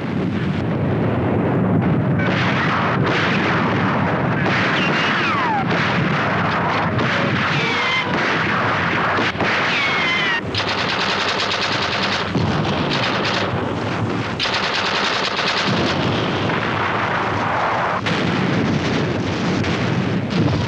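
Battle sounds: continuous heavy gunfire, rapid shots running together into a steady din, with field-gun fire among it. A few brief falling whistles cut through between about four and ten seconds in.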